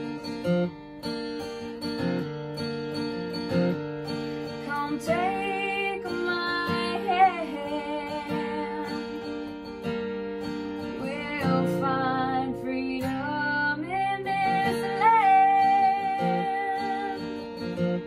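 Background song with acoustic guitar, a voice singing the melody from about five seconds in.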